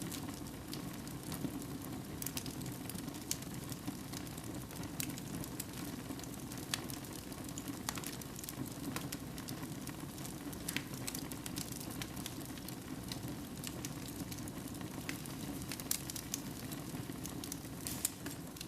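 Wood fire burning in a fireplace: a steady low rushing with irregular sharp crackles and pops.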